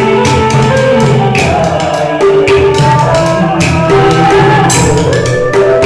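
Live Vietnamese chèo folk music: a man singing through a microphone, accompanied by a bamboo flute playing held notes and a small drum struck in frequent sharp strokes.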